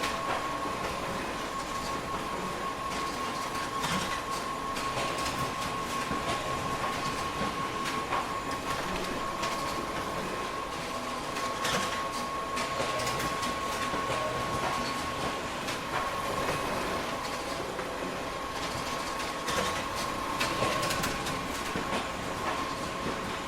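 Photocopier running a booklet-making job: a steady mechanical running noise with a constant high whine and irregular clicks and clacks as paper is handled.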